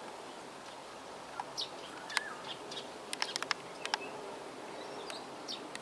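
Birds chirping in short, scattered calls over a faint, steady outdoor background noise.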